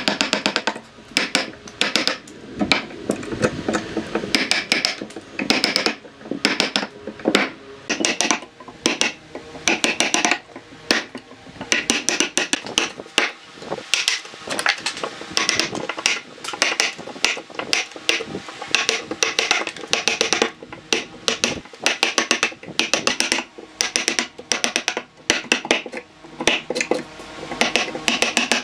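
Wooden mallet striking the handle of a steel wood chisel, chopping notches into a log: a run of sharp knocks at an uneven pace of about one to three a second, some with a short metallic ring.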